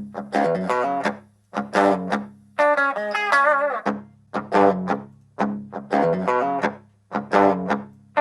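Electric guitar played through a Marshall mini practice amp: a riff of sharply picked notes and chords, each ringing and dying away, repeated over and over.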